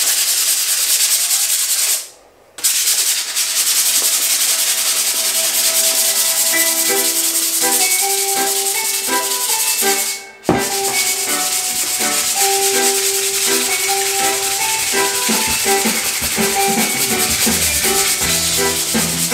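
Sandpaper rubbed by hand along a hickory hammer handle: steady rasping back-and-forth strokes that stop briefly twice, near 2 s and 10 s in. Music with plucked notes rises underneath from about halfway.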